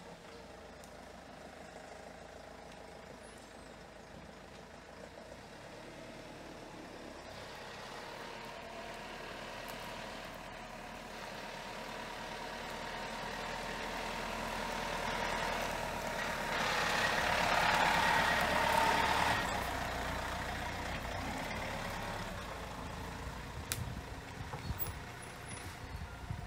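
Renault Master van driving slowly along a dirt track: its engine grows louder as it approaches, is loudest as it passes close about two-thirds of the way in, then fades as it moves away. A few sharp knocks sound near the end.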